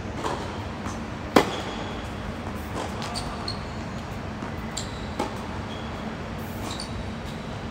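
Tennis ball struck by rackets during a rally: a fainter hit from the far end, then one loud, sharp hit close by about a second and a half in, and two more hits a few seconds apart. Short high squeaks of shoes on the hard court come in between, over a steady background hum.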